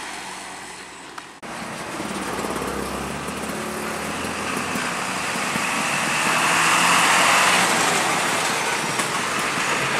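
A container semi-trailer truck fades as it drives away, then after a sudden cut a loaded Hino 500 series diesel truck towing a trailer passes close by. Its engine and tyre noise grow louder to a peak a little past halfway, then carry on.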